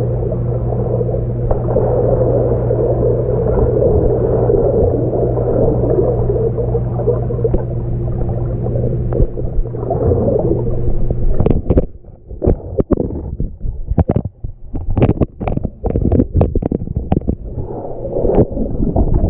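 Muffled, water-filled rumbling with a steady low hum, as heard through a camera submerged in a swimming pool. About eleven seconds in it gives way abruptly to a string of sharp knocks and clicks.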